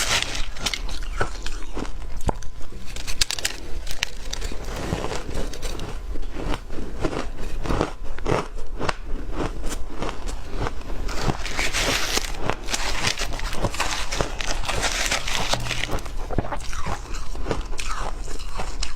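Close-miked crunching of butterfly-shaped ice being bitten and chewed, a steady run of crisp crackling crunches. The crunching gets denser and brighter in the middle of the stretch.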